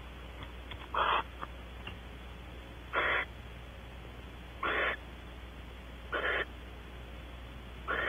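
Barn owl giving short, harsh, hissing calls, about five of them, one every one and a half to two seconds.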